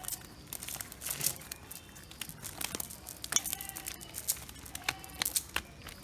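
A nylon cast net being shaken and pulled over dry leaves and dirt, with freshly caught fish flapping in it: irregular rustling and crackling broken by many sharp slaps and taps.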